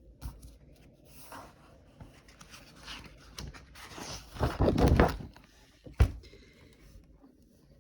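Rustling and scuffing handling noises, as of a paper book's pages being handled and turned, with a louder stretch of rustling about four to five seconds in and a single sharp click about six seconds in.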